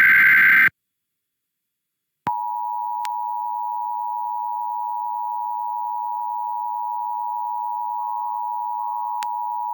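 The end of an Emergency Alert System data header burst, a harsh squealing data tone that cuts off less than a second in. After about a second and a half of silence, the EAS attention signal, a steady two-tone beep, begins and holds on.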